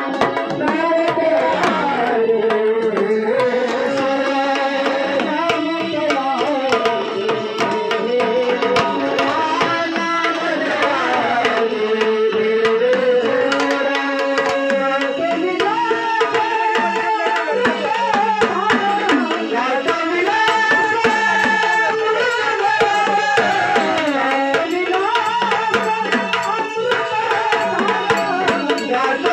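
Sambal, a Maharashtrian pair of stick-played drums, beaten in a fast continuous rhythm, with a melody line rising and falling over the drumming.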